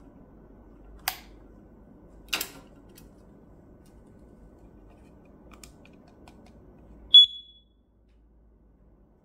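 A few sharp handling clicks, then one short, loud, high-pitched beep from the Smartwares FGA-13800 carbon monoxide alarm's sounder about seven seconds in.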